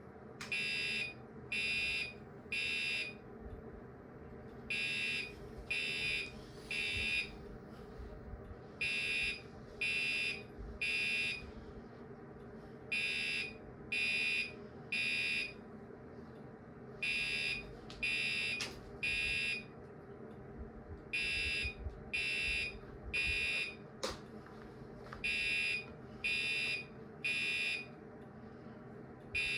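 Gentex Commander 3 fire-alarm horn sounding in the temporal-three pattern: three short buzzy blasts, a pause, then three more, repeating about every four seconds.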